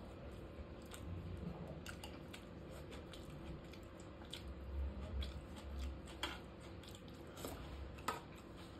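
Quiet chewing of masala dosa eaten by hand, with several faint short clicks and rustles from fingers tearing the dosa on a steel plate.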